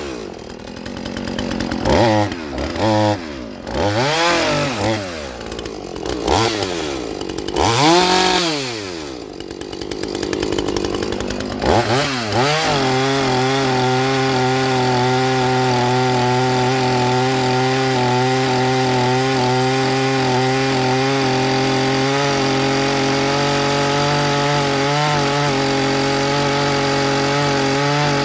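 Two-stroke chainsaw engine revved up and down in a series of short blips for about twelve seconds, then held running at one steady speed.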